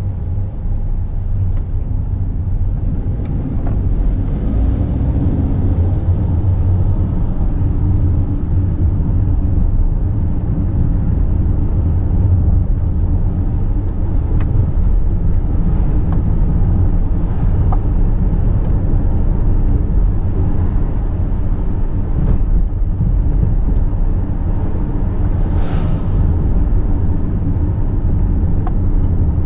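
Car engine and tyre noise heard from inside the cabin while driving, a steady low rumble.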